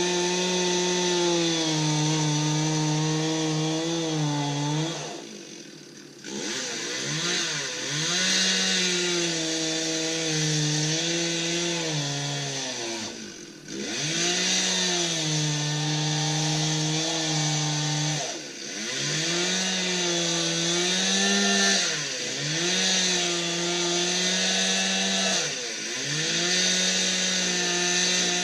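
Chainsaw running at high revs and cutting wood, its pitch dipping and recovering every few seconds as it bogs in the cut, with brief drops in level now and then.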